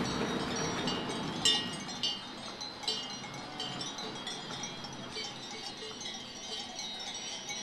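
Small metal bells clinking and ringing at irregular intervals, with a low rumble fading out at the start.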